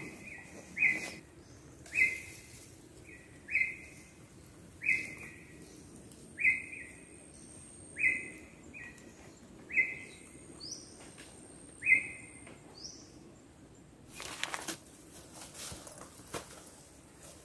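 A bird calling over and over, a short note about every second or so, stopping about twelve seconds in, with two short, higher, falling notes from another bird near the end. About fourteen seconds in comes a loud rustle of leaves and twigs under footsteps in the undergrowth.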